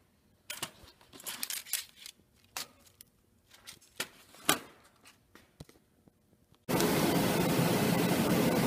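Light clicks and rattles of thin laser-cut ABS plastic revolver pieces being picked up and set down on paper. Near the end, a loud steady rushing noise from a laser cutter's blowers and air assist starts abruptly.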